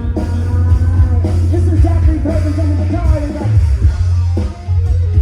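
Rock music with a sung vocal and a heavy bass line.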